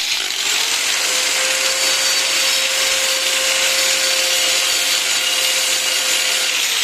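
Angle grinder with a Bosch carbide multi wheel cutting through a laminate floor plank: a loud, steady grinding hiss over the motor's steady whine, which settles in pitch during the first second and sags slightly near the end as the cut finishes.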